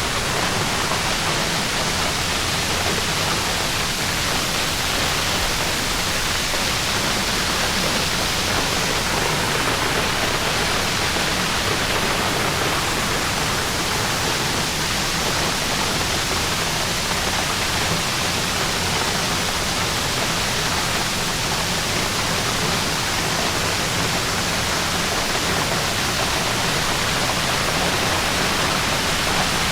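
Waterfall rushing: a steady, loud, even roar of falling water.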